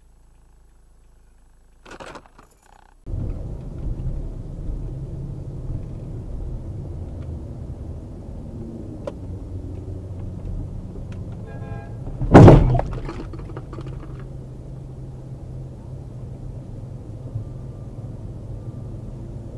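Steady low rumble of a car's engine and road noise heard from inside the cabin in city traffic, starting about three seconds in after a near-quiet stretch. About twelve seconds in comes a single loud thud, the loudest sound.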